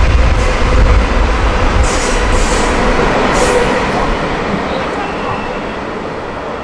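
Indian Pacific passenger train's stainless-steel carriages rolling past on the rails: a loud, dense rumble of wheels on track that fades steadily as the train moves away, with a few brief high hisses a couple of seconds in.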